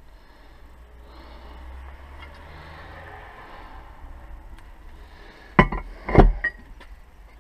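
Two heavy knocks about half a second apart as the aluminium differential housing is set down on a wooden workbench, after a few seconds of quiet handling and rustling.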